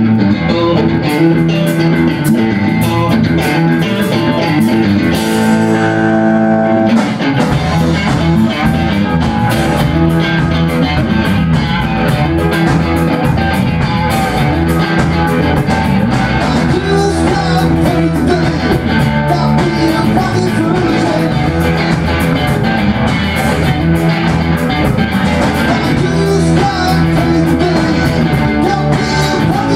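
Blues band playing live: electric guitars through Marshall amps over a drum kit, with a steady beat. About seven seconds in, after a held chord, the full band comes in with a heavier bottom end.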